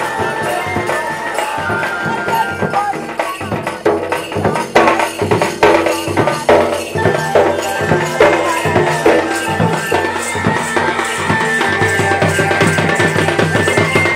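Live folk music for a Jandali dance: drums and other percussion beating under a held melody line, with the strokes heaviest from about five to seven seconds in.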